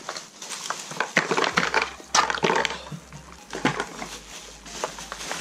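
Cardboard box and plastic packaging being opened and handled: a run of rustling, scraping and sharp knocks as the box is opened.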